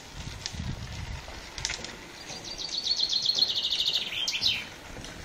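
Common chaffinch singing: a few short chirps, then a rapid run of repeated notes, about eight a second, descending slightly and ending in a quick downward flourish.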